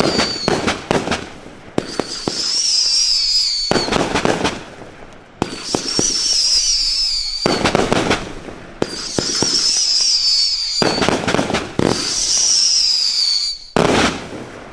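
Bright Star 'The Jack Hammer' (BS8046) fireworks cake firing in a repeating pattern. A wavering high whistle lasts about two seconds, then comes a volley of loud bangs and crackles, about every three and a half seconds. There are five volleys, the last near the end.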